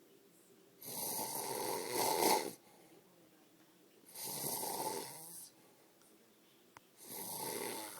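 A man asleep, snoring: three long snores about three seconds apart, with a short click just before the third.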